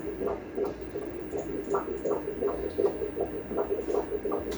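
Fetal heartbeat played through the ultrasound machine's Doppler speaker: a fast, even whooshing pulse of about two to three beats a second, around 160 beats per minute, a lively heart in a 13-week fetus.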